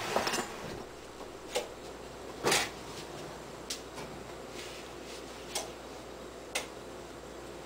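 An electric oven's door is opened, with a handful of separate light clicks and knocks about a second apart, the loudest about two and a half seconds in.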